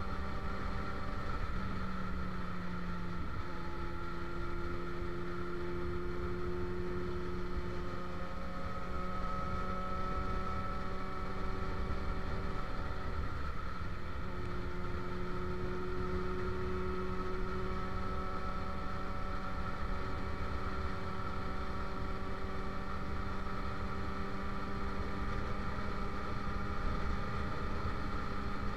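Motorcycle engine running at a steady cruising speed, its pitch drifting slightly up and down, over a low rumble of wind on the microphone.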